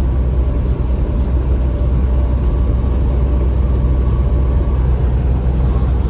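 Semi-truck driving at a steady speed: a constant low engine drone mixed with road rumble.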